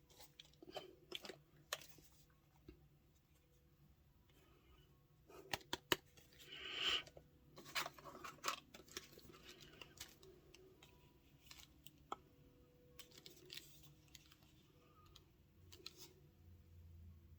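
Product packaging being opened and handled by hand: soft, scattered clicks, crinkles and short tearing or rustling sounds, with the loudest crinkle about six to seven seconds in.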